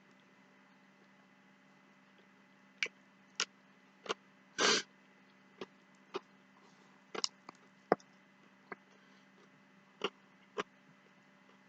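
Scattered sharp clicks and knocks of eating: utensil and food handling, about a dozen in all, with one longer scraping crunch about five seconds in, over a steady electrical hum.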